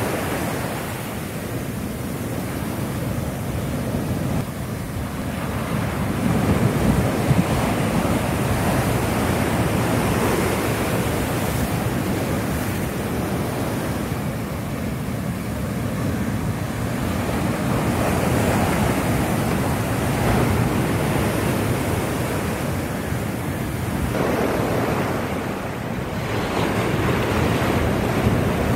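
Heavy storm surf from a cyclone-driven sea breaking and washing up a sandy beach, in a continuous noise that swells in surges as each set of waves comes in. Wind buffets the microphone.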